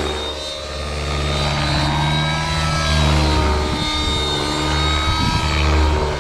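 Nitro RC helicopter's O.S. 55 HZ-R glow engine with tuned pipe, running at high governed rpm through aerobatic manoeuvres. Its steady drone carries a whine whose pitch drifts up and down as the heli moves, and the sound wavers between about four and five and a half seconds in.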